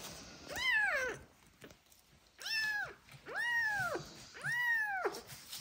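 A young kitten meowing four times, each cry rising and then falling in pitch, as it is held for eye drops.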